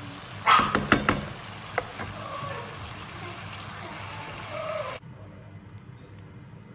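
Sliced mushrooms and onion sizzling in a non-stick frying pan as a plastic spatula stirs them. About a second in there is a loud burst and a few sharp knocks of the spatula against the pan. The sizzle turns quieter about five seconds in.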